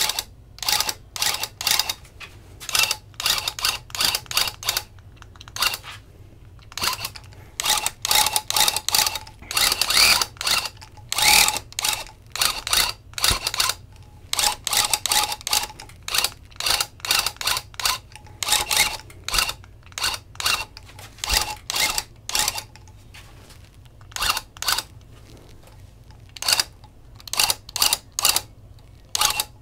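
Electric loop pile tufting gun running in short bursts of rapid mechanical clatter, starting and stopping again and again as it is guided along the backing, with a few longer runs and a quieter stretch near the end.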